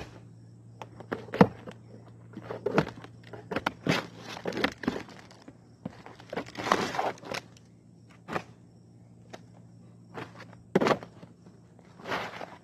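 Hands-on work on an asphalt-shingle roof: old shingles and roofing felt being pulled up and handled, giving irregular scrapes, crackles and knocks, with a longer scraping rustle about halfway through. A faint steady low hum runs underneath.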